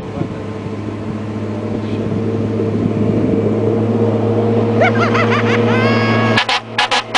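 Diesel engine of a 2008 Oshkosh Striker 3000 crash truck running steadily and growing louder as the truck picks up speed. Several rising whines come in about five seconds in, and near the end the sound briefly cuts in and out.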